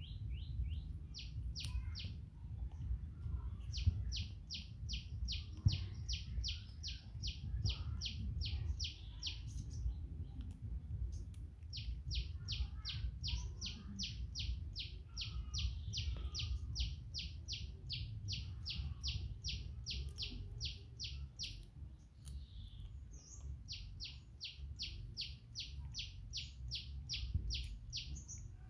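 Rapid, evenly spaced high chirps, about three a second, in runs lasting several seconds with short breaks between, over a steady low background rumble.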